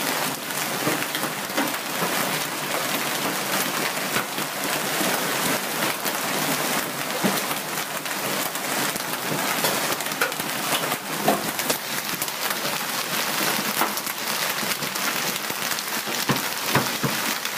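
Hailstorm with heavy rain: a dense, steady hiss of rain, broken by many scattered sharp ticks of hailstones striking.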